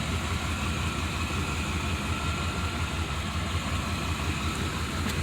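1992 Buick Roadmaster's 5.7-litre V8 idling steadily, a low even rumble.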